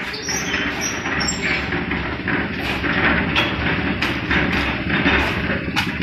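Portable drum concrete mixer running, a steady rumbling noise with frequent knocks and rattles as the drum turns the mix.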